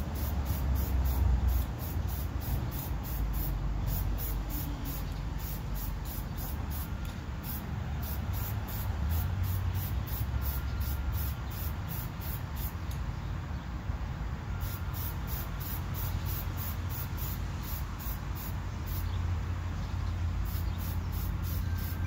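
Aerosol spray paint can hissing in short repeated spurts, stopping briefly a few times between passes, over a low rumble.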